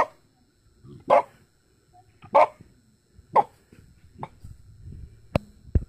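Small dog barking up at wasps it is hunting: five barks about a second apart, the last one shorter and weaker, then two sharp clicks near the end.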